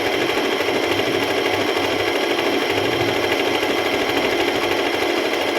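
Singer M3505 electric sewing machine running steadily at speed, stitching the mending stitch over the join of two torn cloth edges.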